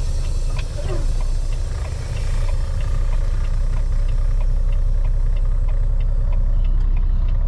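Semi truck's diesel engine running steadily as heard from inside the cab, getting a little louder about two seconds in as the truck pulls slowly away and turns, with light rattles and ticks from the cab.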